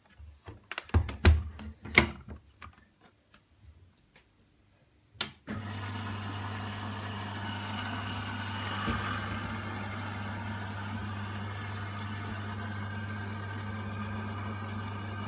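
Washing machine: a few clicks and knocks, then about five seconds in a steady low hum starts suddenly and runs on evenly.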